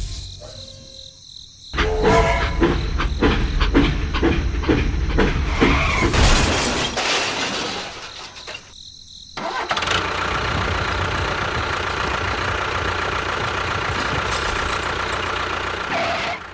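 A small motor running in several abrupt segments, with rapid clicking through the first loud stretch and a steady, even run in the last part.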